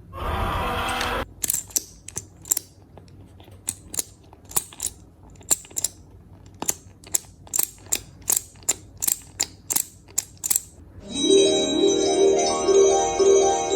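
A noisy sound cuts off about a second in, followed by a long, irregular string of sharp clicks or taps, about twenty in all. Near the end a short, bright electronic tune like a ringtone or chime starts.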